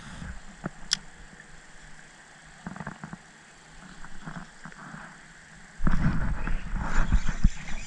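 Scattered light clicks and knocks of fishing gear being handled in a plastic kayak. From about six seconds a loud low rumble of handling noise on the microphone, as an arm moves right against the camera.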